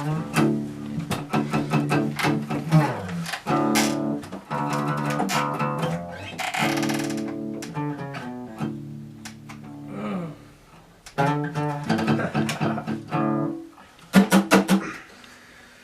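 Guitar notes and chords plucked and strummed in loose, stop-start snatches, with some bass guitar underneath: a band warming up before counting in a song.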